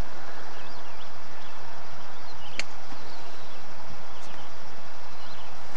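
Golf iron striking range balls: a sharp click about two and a half seconds in, a faint one later, and a loud crack at the very end. Under them runs a steady background hiss, with faint bird chirps.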